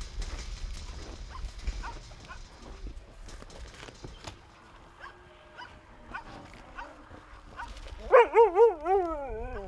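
A dog giving a loud wavering whine-howl near the end, about a second and a half long, its pitch wobbling up and down and dropping at the close. Faint scattered yelps come before it.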